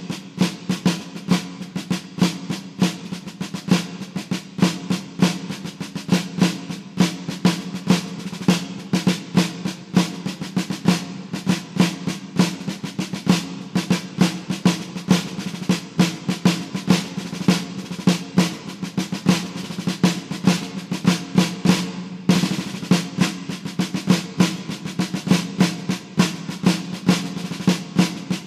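Percussion music led by rapid snare-drum rolls over a steady low drone, running on without pause.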